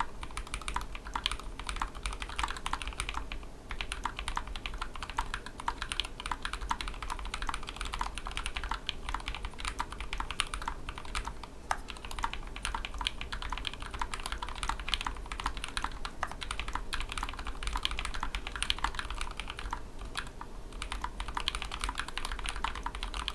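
Fast, continuous typing on a custom 60% tray-mount mechanical keyboard (carbon-fibre plate, GK64 PCB) with lubed hybrid switches: Aliaz housings, Halo Clear stems and Greetech Blue leaves. Keystrokes come in a dense, steady stream with brief pauses twice.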